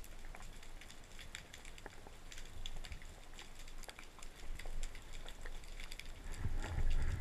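Underwater crackling: a steady scatter of sharp little clicks and snaps from the rocky reef, with a low rumble of water movement swelling near the end.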